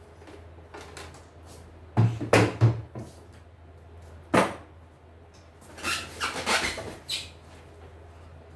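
Hard plastic machine parts being handled and set down on a wooden workbench: three quick knocks about two seconds in, a single sharp click a couple of seconds later, then a burst of clattering around six seconds, over a steady low hum.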